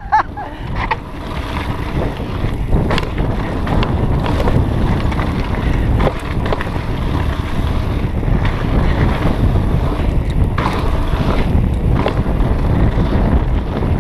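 Wind buffeting the camera microphone on a mountain bike riding fast down a rocky dirt trail. The tyres rumble over the dirt, and the bike rattles and clacks now and then over bumps.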